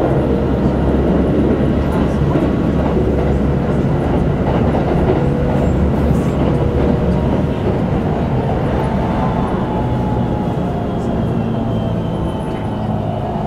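Keikyū 2100 series electric train running at speed, heard from inside the passenger car: a steady rumble of wheels on rail and running gear, with faint whining tones that drop slightly in pitch over the last few seconds as it eases off.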